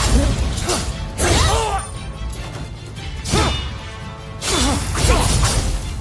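Saber combat sound effect: a steady low hum with swishing swings that bend up and down in pitch, and about four loud clashes.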